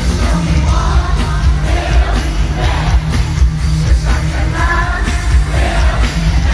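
Mandopop song with a woman singing over a heavy, pounding electronic bass beat, loud and steady.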